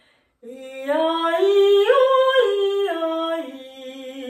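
A woman singing a vocal warm-up exercise on alternating 'ee' and 'eh' vowels with her tongue out. The notes step up a scale to a peak about two seconds in, then step back down.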